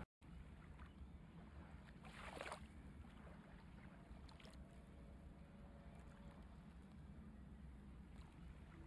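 Near silence: faint room tone with a low hum, and a brief soft rustle about two seconds in.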